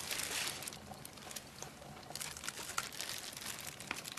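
Crinkling of a bag of dry cat food being handled, then scattered small sharp clicks and crackles.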